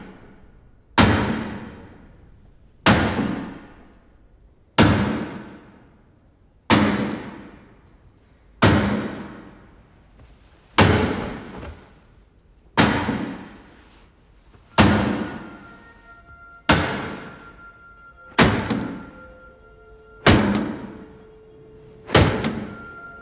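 Film score of heavy percussive strikes at an even, slow beat, about one every two seconds, each ringing out in a long echoing decay. Faint sustained tones join in about two-thirds of the way through.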